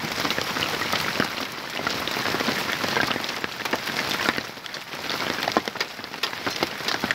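Hail and rain falling on a wet dirt track and grass: a dense, steady patter dotted with many sharp ticks of hailstones striking.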